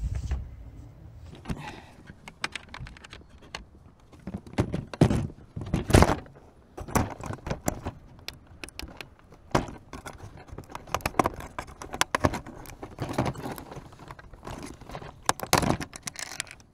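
Handling noise from the LEGO Technic rappelling vehicle: irregular clattering clicks and knocks of its plastic parts and fittings being moved about close to the microphone, loudest about five and six seconds in.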